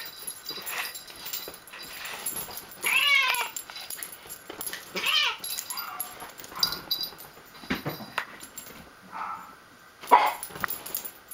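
A hairless dog and a hairless cat play-fighting: several short pitched animal cries, loudest about three, five and ten seconds in, over scuffling and rustling of bedding.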